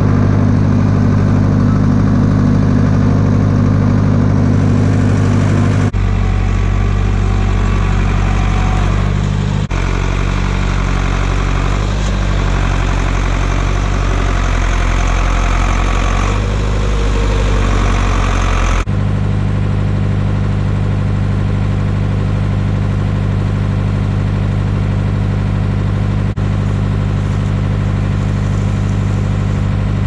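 Compact diesel tractor engine running steadily under the front loader while it carries and sets down a round hay bale. Its steady note shifts abruptly a few times.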